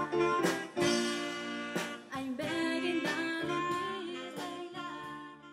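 Music: a song with a singer and instruments, fading out near the end.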